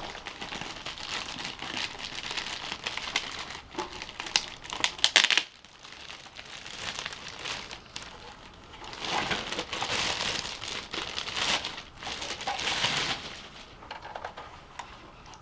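Packaging crinkling and rustling in bouts as it is handled around a car amplifier. The first bout ends with a few sharp clicks, and two more bouts come after a short lull.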